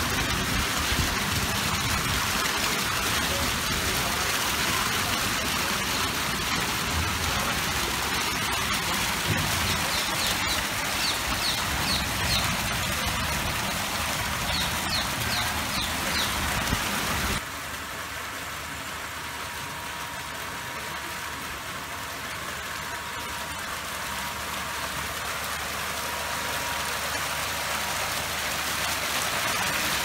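Water sheeting down a grooved stone waterfall wall and foaming fountain jets splashing into the pool: a steady rushing, splattering hiss. It drops to a quieter level suddenly about 17 seconds in.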